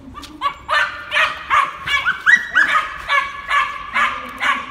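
A young Malinois puppy barking and yapping in a rapid series, about three high-pitched barks a second, while it is worked up on a tug rag.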